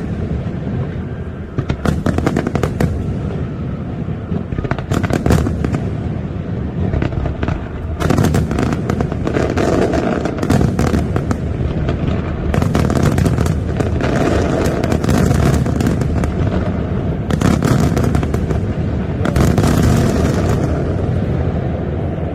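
Fireworks display: clusters of rapid crackling bangs come in waves every few seconds over a continuous deep rumble.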